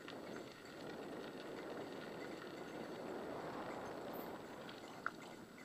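Mountain bike riding fast along a dirt forest trail: a steady rolling noise of tyres and bike, with one sharp click about five seconds in.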